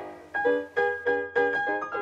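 Piano music playing a quick run of struck notes, about four or five a second, after a brief lull at the very start.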